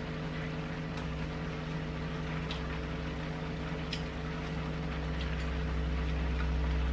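Steady low mechanical hum of a kitchen appliance, growing louder near the end, over a faint even hiss from the chop suey vegetables cooking in the pan, with a few light ticks.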